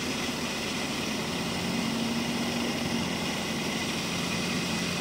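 Rice combine harvester's diesel engine running steadily, a constant low hum with a steady tone.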